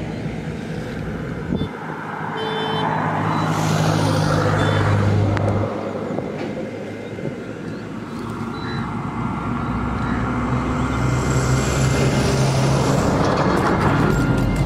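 Road traffic: motor vehicle engines passing, a low steady hum that swells twice as vehicles go by.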